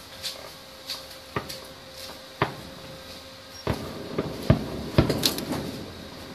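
Distant fireworks going off: scattered sharp bangs and cracks, then a quicker cluster of bangs with a rumbling echo about four to five and a half seconds in.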